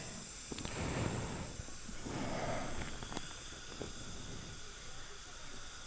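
Faint steady hiss of dental equipment with a few light metallic clicks as a lever instrument works in the slots cut into a broken implant screw.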